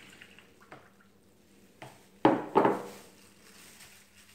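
Milk poured from a glass over raw chicken pieces in a plastic tub, then two loud wet squishes a little over two seconds in as a gloved hand presses the chicken down into the milk.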